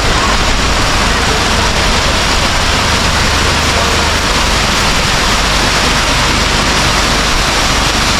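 Waterfall: the steady, loud rush of water pouring down the falls, unbroken throughout.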